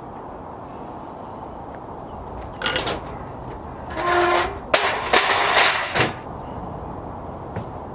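Metal loading ramp dragged out over a van's load floor and set down. A short scrape comes first. Then there is a pitched metal screech, followed by about a second and a half of loud scraping and clattering.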